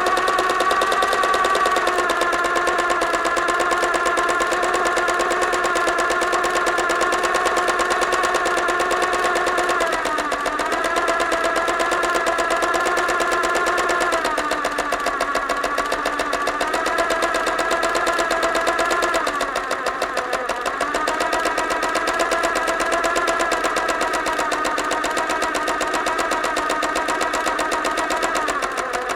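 Sewing machine running fast with a steady, rapid stitching rhythm. Its motor slows briefly several times, about ten, fifteen and twenty seconds in and again near the end, then picks up speed again.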